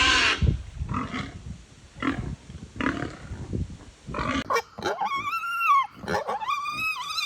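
Pig vocalizing. A loud squeal cuts off right at the start, then come short low grunts about once a second, and in the second half two longer high-pitched squealing calls, each falling away at its end.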